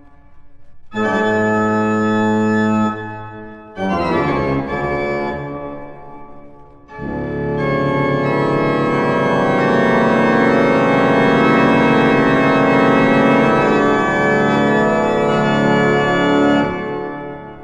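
Organ music: a held chord about a second in, a short passage of moving notes, then a long, full chord that fades away near the end.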